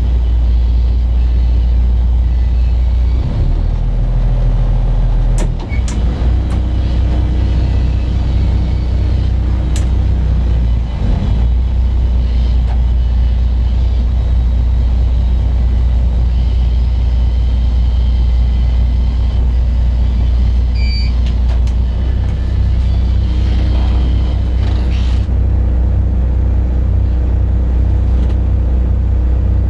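Diesel engine of a spits motor barge running at low revs, a steady low rumble heard from the wheelhouse; the engine note changes briefly a few seconds in, and a short high beep sounds about two-thirds of the way through.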